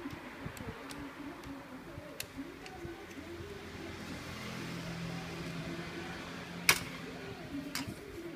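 Clicks and knocks of the plastic and metal parts of a copier fuser unit being handled and pulled apart, with one sharp, much louder snap near the end.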